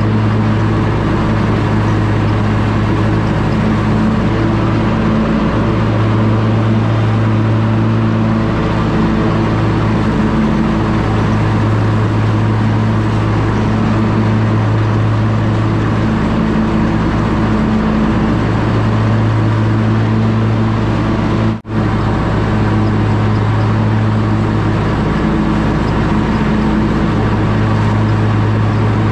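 Skag zero-turn mower engine running steadily under load while mowing, a constant low hum. The sound drops out for an instant about three quarters of the way through.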